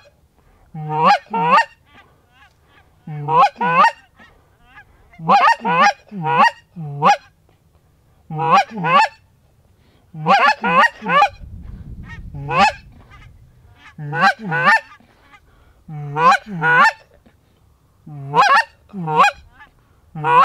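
Loud goose honking in quick groups of two to four, a group about every two seconds.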